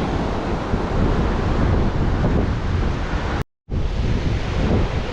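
Pacific Ocean surf washing on the beach, with wind buffeting the microphone. The sound cuts out completely for a moment about three and a half seconds in.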